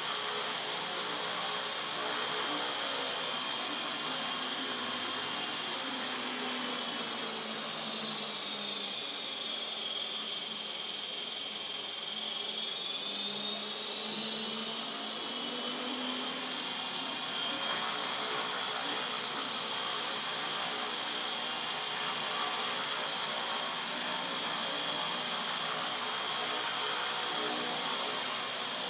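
Align T-Rex 450 SE electric RC helicopter hovering: a steady high-pitched whine from its motor and drive gears over rotor noise. A few seconds in, the whine dips in pitch and softens for several seconds, then rises back to its steady note.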